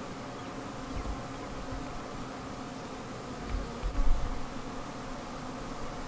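Honey bees buzzing in flight at a hive entrance, a steady hum. A few low bumps on the microphone about a second in and around the middle.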